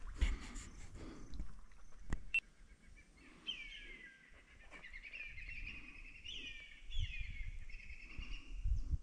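A bird singing a run of repeated downward-sliding notes for about five seconds, starting about three seconds in. Under it are a few sharp knocks near the start and low thuds of footsteps on dry leaf litter and stones.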